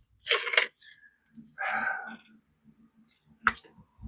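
Sparse handling noises as hand tools are picked up and moved, with a sharp click about three and a half seconds in.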